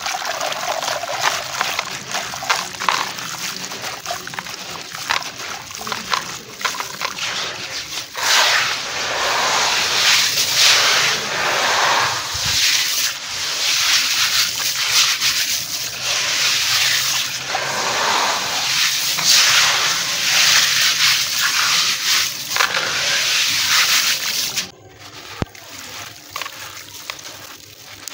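Gritty stone and sand clumps crushed by hand and crumbling into a basin of water: a dense crunching and patter of grit and pebbles showering and splashing into the water. It drops much quieter for the last few seconds.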